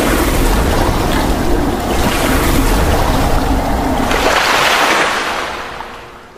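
Water sound effect, a dense rush of splashing like surf, swelling a little past four seconds in and then fading out near the end.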